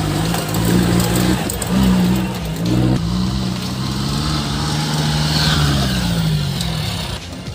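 Modified Willys jeep's engine running under throttle on a dirt track, its note dropping and climbing several times as the revs change, then easing down near the end.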